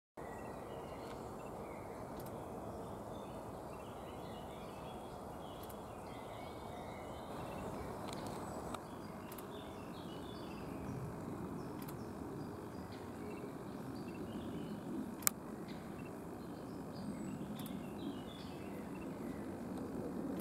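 Outdoor ambience: a steady low rushing background with scattered faint bird chirps, and one sharp click about fifteen seconds in.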